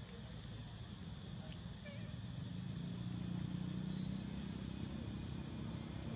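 Low, steady hum of a motor vehicle engine, growing louder about halfway through and then holding. A single brief tick comes about a second and a half in.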